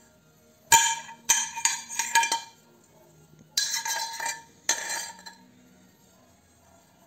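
Metal boiler shell from a steam ironing device clinking and scraping against metal as it is handled, in four short bursts of rattling with a ringing tone from the shell.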